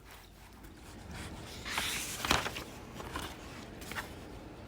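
Soft rustling and handling noise, like a picture book's page being turned, loudest about two seconds in, with a sharp click and a few fainter ticks after it.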